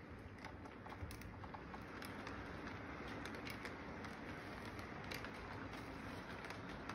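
Model train's wheels rolling along the track with a steady rumble and scattered light clicks as the double-stack intermodal cars pass.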